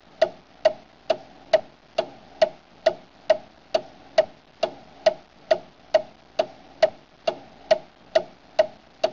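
Steady clock-like ticking, a little over two sharp ticks a second, evenly spaced.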